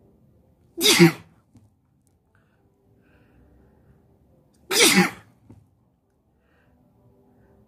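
A man sneezing twice, about four seconds apart, each a short, loud, voiced sneeze.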